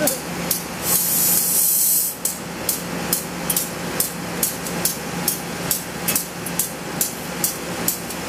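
A diesel locomotive idling with a steady hum, under a sharp, regular clicking about twice a second. A burst of compressed-air hiss starts about a second in and lasts roughly a second, while the coupling between locomotive and coach is being worked.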